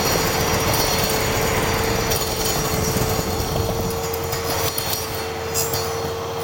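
Table-mounted circular saw running with a steady hum, its blade working on a wooden cylinder being turned to round. The high hiss thins somewhat after about two seconds.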